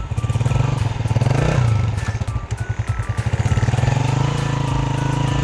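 Motorcycle engine running, with a brief rev that rises and falls about a second and a half in.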